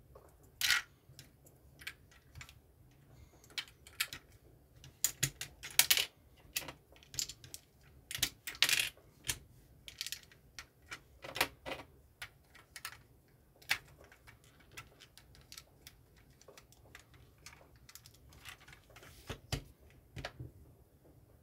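Plastic LEGO bricks clicking and snapping as they are handled and pressed onto a small car model. The clicks come irregularly, busiest in the first half, with the loudest near the middle.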